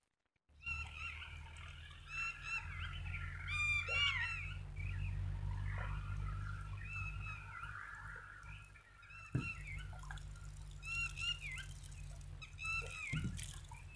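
Birds calling repeatedly in short, arched notes, over a steady low rumble, with one sharp knock a little past the middle.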